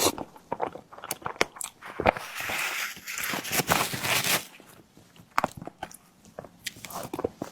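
Close-miked mouth sounds of a person eating a tiger skin dessert: bites and chewing with many sharp clicks and smacks, and a longer noisy stretch in the middle.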